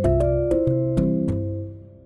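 Background music: keyboard notes over a ticking beat, fading out near the end.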